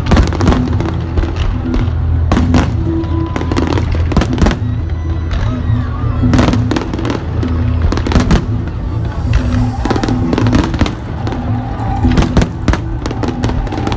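Fireworks going off in quick succession, many sharp bangs and crackles, with music playing underneath.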